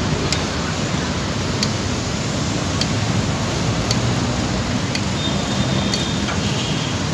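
Steady city traffic noise, the rumble of trucks, jeepneys and motorcycles crawling in heavy traffic, heard from a bicycle riding among them. A light click comes regularly, about once a second.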